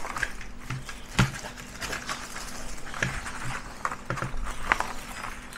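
Baking paper rustling and crinkling as it is pressed into a metal baking tray and trimmed with scissors, with scattered light taps on the tray and a sharper knock about a second in.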